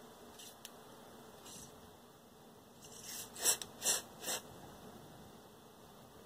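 Short hissing squirts of aerosol freeze spray, about four quick ones a little past the middle and fainter ones earlier. The spray chills circuit-board parts one at a time to find a heat-sensitive faulty component.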